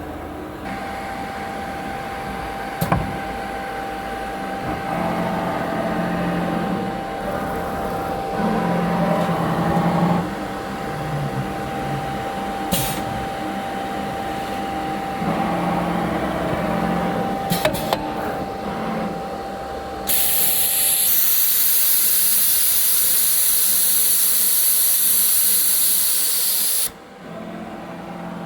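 Automatic tool-change CNC router with a linear tool magazine running its automatic tool calibration: the axis motors drive the gantry back and forth in several moves, with a few sharp clicks. From about 20 s a loud blast of compressed air hisses for about seven seconds, then cuts off suddenly.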